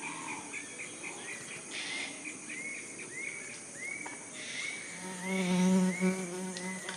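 Forest insect sounds: a flying insect buzzes close by for about two seconds, starting about five seconds in. Under it runs a short arching chirp, repeated about one and a half times a second.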